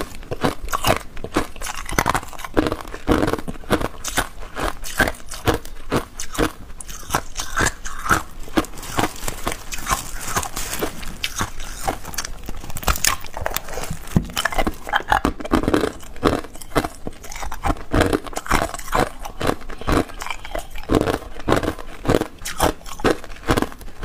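Hard clear ice cubes crunching and clicking in a rapid, irregular run of sharp snaps.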